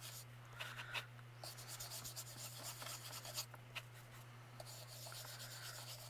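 Small ink-blending brush rubbing ink onto a pumpkin cutout in short, irregular strokes, a faint soft scratching with a few light ticks. A steady low electrical hum runs underneath.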